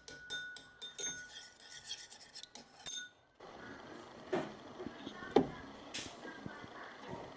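Kitchen utensils clinking against dishware: a quick run of ringing clinks for about three seconds, then after a short break softer scraping and handling with a few knocks, one of them loud.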